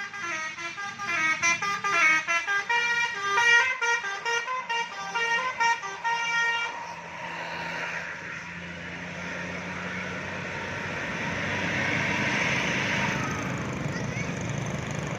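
A bus's 'telolet basuri' musical horn playing a quick tune of stepping notes, which cuts off about seven seconds in. After it, a steady rushing noise of the passing bus that swells and eases off.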